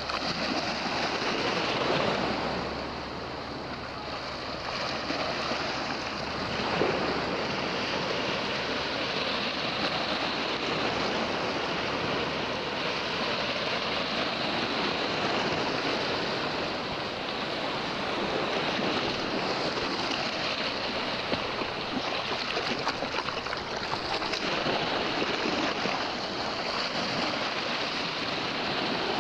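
Small sea waves breaking and washing over rocks at the shoreline: a steady rushing of surf that swells and eases as each wave comes in.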